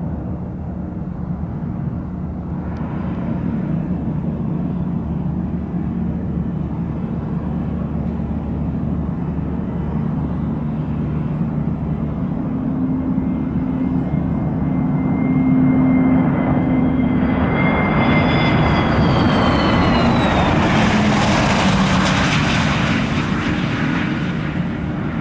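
Business jet engines: a steady low jet rumble, then a Gulfstream on landing passes close, its engine whine falling in pitch as the roar grows loudest about three quarters of the way in.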